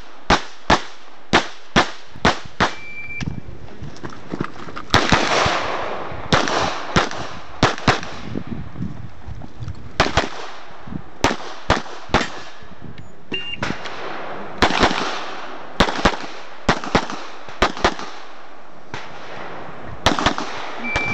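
9mm CZ 75 SP-01 Shadow pistol firing dozens of shots, mostly in quick pairs, with brief pauses between strings as the shooter moves between positions. A short high beep sounds about three seconds in.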